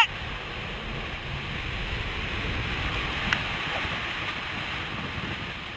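The roar of a nearby tornado mixed with strong wind: a steady rushing noise with no let-up.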